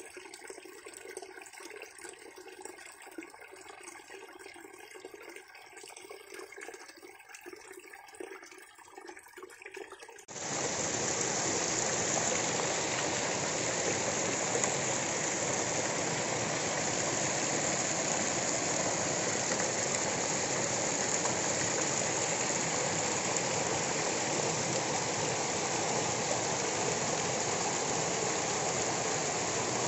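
Water cascading over stones: a quieter, uneven splashing flow that abruptly gives way, about a third of the way in, to a much louder, steady rush of falling water.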